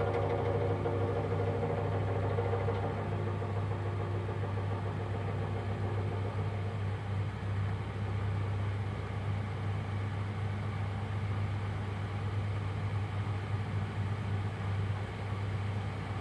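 Miele WDB030 washing machine running with a steady low hum and a rough rattling; the rattle is an unexplained fault in a machine under a year old. A higher tone in the mix fades out about three seconds in.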